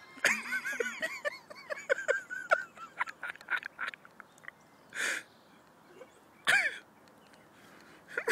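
A turkey call being worked: a rapid string of short, high, squeaky yelp-like notes, then two separate harsher, raspier calls a second and a half apart.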